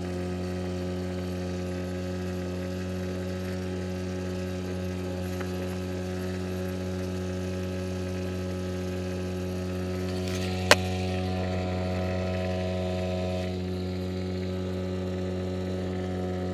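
Mercury 5 hp outboard motor running steadily at a constant speed, a low even drone, driving an inflatable boat. A single sharp click sounds a little past the middle.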